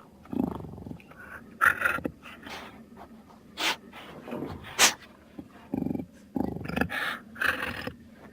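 Baryonyx dinosaur creature sound effects: a run of short growls and snarls, broken by two sharp hissing breaths near the middle.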